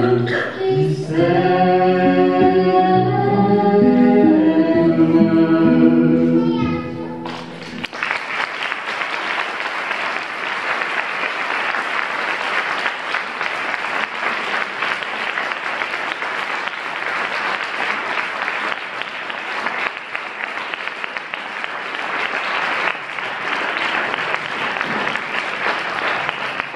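A cappella singing in harmony by several voices ends about seven seconds in, and the crowd breaks into long, steady applause.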